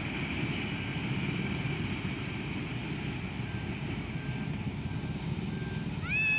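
Freight train of tank wagons behind a BB 303 diesel-hydraulic locomotive, rumbling steadily as it moves away along the track. Near the end a cat starts to meow, a rising, high call.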